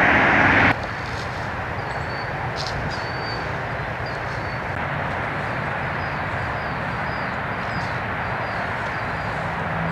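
A loud rushing noise cuts off abruptly about a second in. After it comes a steady outdoor background noise with faint, repeated high chirps.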